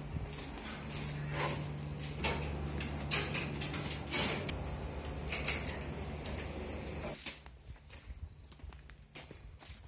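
A steady low machine hum that cuts off suddenly about seven seconds in, with rustling and clattering knocks over it.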